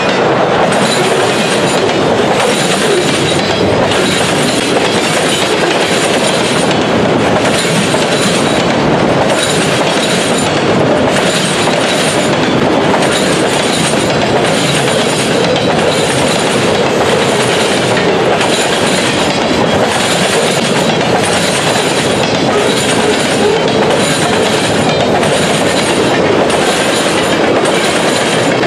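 Freight cars of a long mixed freight train rolling past close by: a loud, steady rumble of steel wheels on rail, with a regular clatter repeating about once a second.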